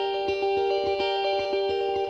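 Background music: an instrumental passage of a song, guitar over a steady beat.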